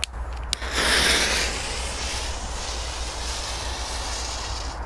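Lit fuse of a Big Jumbo firecracker hissing. After two sharp clicks, the fuse catches less than a second in and flares with a loud hiss, then keeps hissing steadily.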